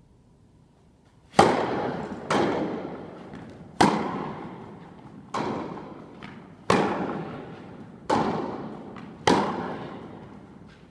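Tennis ball struck by rackets and bouncing on the court during a serve and rally: seven sharp knocks about a second or so apart, starting about a second and a half in. Each knock rings on in a long echo through the indoor tennis hall.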